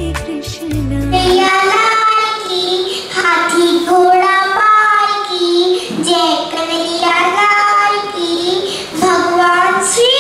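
A young girl singing solo into a microphone, in held notes that slide up and down, with no instruments heard. Before she starts, recorded music with a deep bass cuts off abruptly about a second in.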